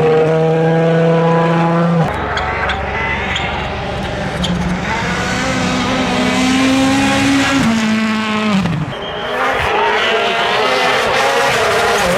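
Rally cars' turbocharged four-cylinder engines at full throttle, with the engine note held high, then rising and dropping through gear changes, and a few sharp pops. The sound changes abruptly about two seconds in.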